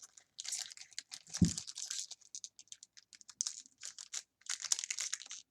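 Pokémon trading cards being handled and flipped through one after another: a rapid, uneven run of light clicks and flicks from the card stock, with a soft thump about a second and a half in.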